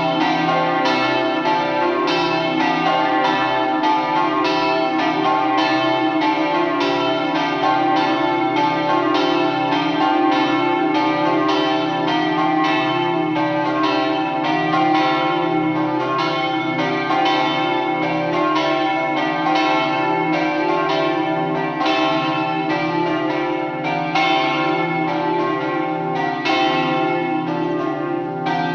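Several swinging church bells ringing together in a festive noon peal, their strokes following one another without a pause so the tones overlap continuously.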